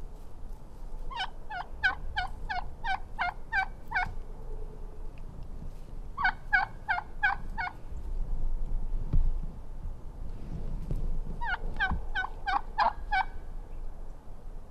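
Wild turkey yelping: three series of sharp, falling yelps at about three a second, with a few low thumps and rustles between the series.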